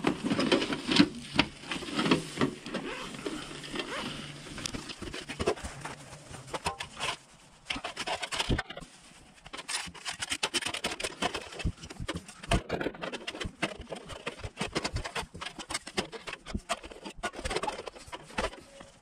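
Folding steel fire pit being unpacked and assembled by hand: a long string of metal clanks and clicks as the stainless base and steel fire bowl are set out, over rustling of the fabric bag and dry leaves and pine needles. It goes quieter for a moment about halfway through.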